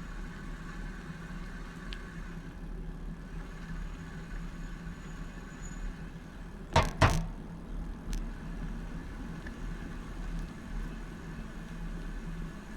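Steady street and riding noise picked up by a handlebar-mounted camera on a bicycle, with two sharp knocks a fraction of a second apart about seven seconds in and a faint click about a second later.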